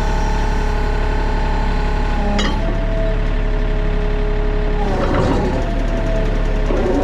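Sany SY35U mini excavator's diesel engine running steadily, its pitch shifting a couple of times as the hydraulics are worked.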